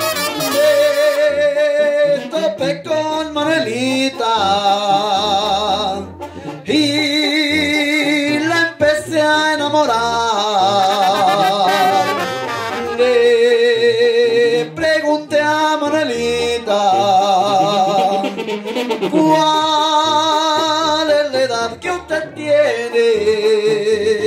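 Tamborazo brass band playing live: trumpets and clarinets carry a wavering, vibrato-laden melody over a sousaphone bass line and drums.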